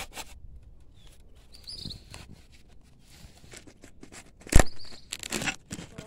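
Handling noise of a bamboo pole with a phone strapped to it: scattered scraping and clicking of bamboo against bamboo and against the phone. A single sharp knock about four and a half seconds in is the loudest sound.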